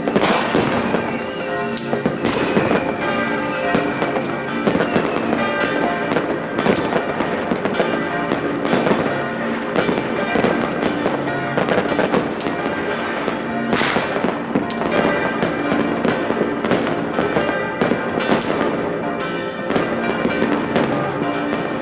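New Year's Eve fireworks: a continuous run of bangs, pops and crackling from many rockets and firecrackers, with sharper loud bangs scattered throughout. Sustained tones at several pitches run underneath the whole time.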